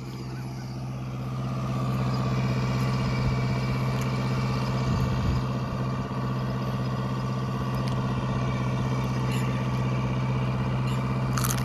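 Arjun Novo 605 tractor's diesel engine running steadily under load while it drives an 8-foot Maschio rotavator through a flooded paddy field, puddling. The hum grows louder over the first two seconds, then holds steady.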